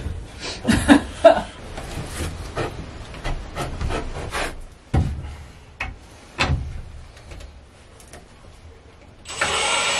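Wooden boards and branch perches being shifted and knocked against a 2x4 frame, with a few sharp knocks. Near the end a cordless drill starts running, driving a screw into the wood.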